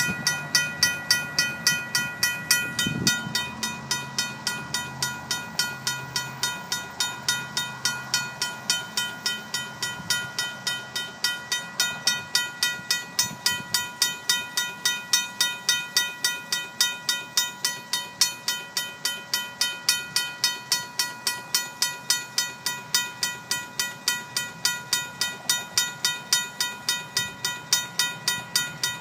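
RACO mechanical railroad crossing bell ringing steadily, about two and a half strikes a second, each strike ringing on. Under it the low rumble of the departing freight train fades away in the first half.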